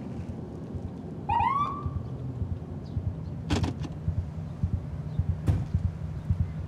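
A police car's siren gives one short rising whoop, the signal for a driver to pull over, over a low irregular thumping. Two sharp clicks follow about two and four seconds later.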